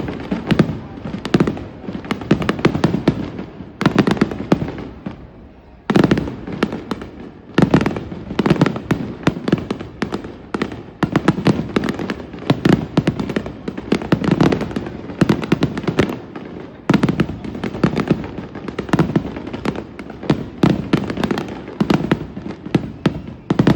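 Fireworks display: aerial shells bursting in quick succession with dense crackling, a near-continuous barrage that swells with a fresh loud volley every few seconds.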